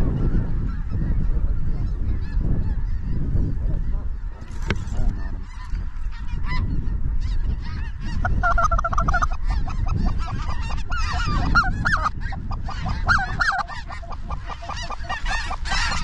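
A large flock of geese calling as it sweeps low over the decoys. A mix of snow and white-fronted geese gives many overlapping honks and yelps that build to a dense chorus in the second half, over a steady low rumble.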